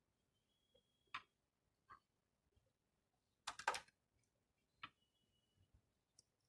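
A few short, sharp clicks and taps of hand work on fire alarm panel hardware, the loudest a quick cluster of clicks about three and a half seconds in. A faint thin high tone sounds briefly twice.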